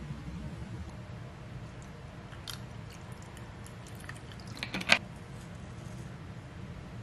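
A drink poured from a plastic bottle into a glass: scattered light crackling clicks from about two seconds in, ending in one sharp click near five seconds.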